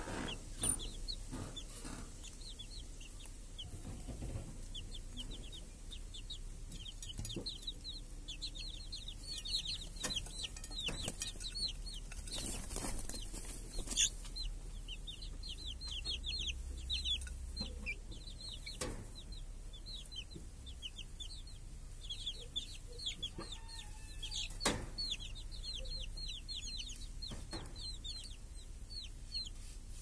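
Domestic chicks peeping in dense runs of short, high, falling chirps, with a hen clucking now and then and a few sharp taps.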